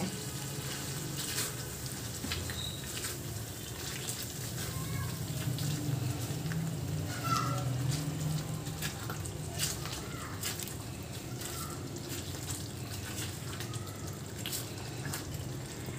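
Chicken karahi gravy, with yogurt just stirred in, sizzling and bubbling softly in the karahi over a low flame. A silicone spatula stirs and scrapes the pan, with many small clicks over a low steady hum.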